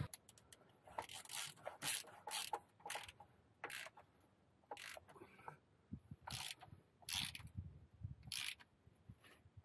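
Hand ratchet wrench clicking in short irregular bursts as bolts are tightened on the underside of a tractor.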